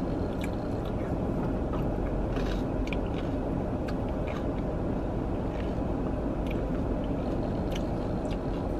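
Chewing a mouthful of smoothie bowl with granola, a scatter of small crisp crunches at irregular intervals, over a steady low rumble inside a car.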